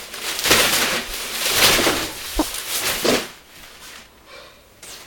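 Rustling and thrashing of a child's play tent's fabric as it is wrestled with, with a sharp click about two and a half seconds in; the noise stops a little after three seconds.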